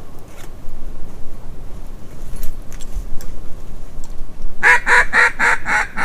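A quick run of about seven loud, evenly spaced mallard quacks, about five a second, starting near the end.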